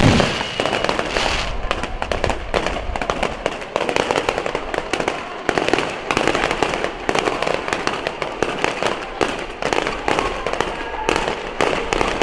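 Aerial fireworks display: a dense, unbroken run of bangs and crackle from many shells bursting in quick succession, with a deep boom right at the start.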